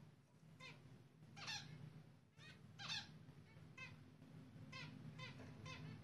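Zebra finch nestling begging as a parent feeds it: a run of short, high cheeps about two a second, with two louder ones about one and a half and three seconds in.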